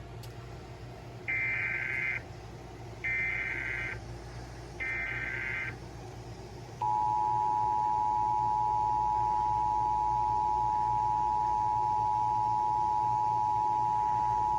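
Emergency Alert System SAME header: three short warbling digital data bursts about a second apart, followed about seven seconds in by the steady two-tone EAS attention signal, received over AM radio with a low hum and hiss underneath.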